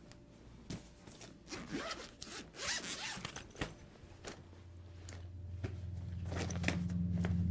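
Quick scraping, rustling strokes of fabric being handled on a bed, densest in the first half, with a few lighter clicks after. A low droning tone swells in during the second half.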